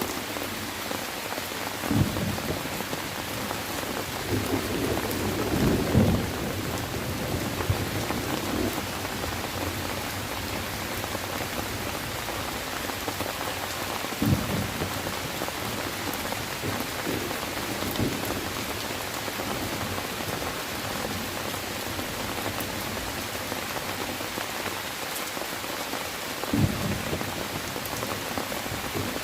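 Steady rain falling, with thunder: a short low crack about two seconds in, a longer rumble swelling to a peak around six seconds in, and further single low claps near fourteen, eighteen and twenty-seven seconds in.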